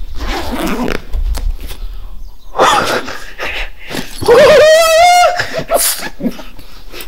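A high, wavering cry held for about a second, starting about four seconds in, with shorter vocal sounds before it.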